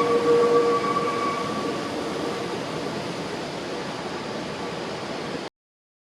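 Nankai Koya Line electric train running, with a steady whine that fades over the first two seconds above a rushing noise. The sound cuts off abruptly about five and a half seconds in.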